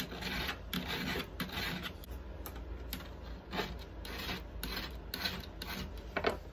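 Well-used flat file rasping back and forth over the steel rivet heads of a chainsaw chain link, in short uneven strokes about twice a second. The rivets are being filed flush so the link can be knocked apart to shorten the chain.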